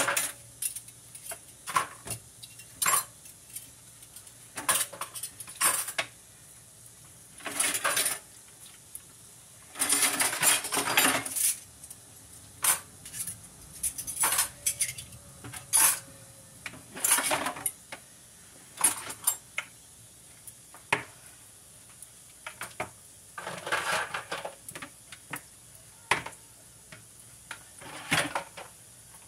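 Dishes, cups and utensils clinking and clattering in a kitchen sink as they are washed by hand, in irregular knocks and clinks. Short spells of running tap water come in between.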